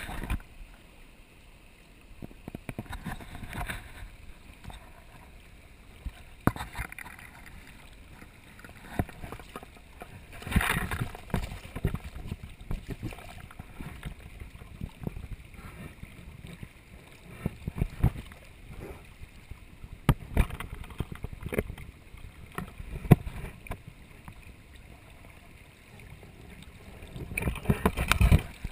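Water splashing and sloshing in a landing net held in a river while a hooked fish is handled, with irregular knocks from the handling. A louder burst of splashing comes near the end.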